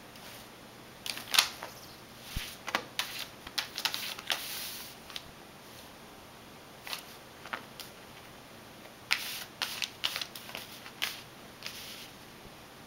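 A sheet of paper crinkling and rustling as a cat noses and paws at it on carpet: irregular crackles in three clusters, loudest about a second and a half in.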